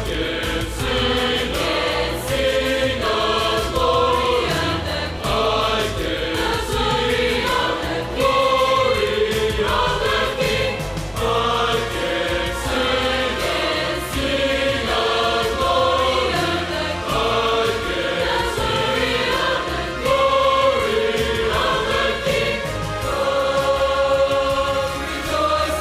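Choir singing a worship song with instrumental accompaniment.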